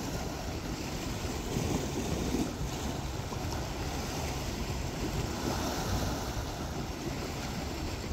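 Steady wash of small sea waves against shoreline rocks, with wind on the microphone.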